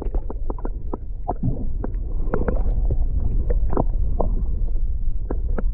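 Underwater sound picked up by a camera held below the surface: a steady low rumble of water with scattered irregular clicks and pops.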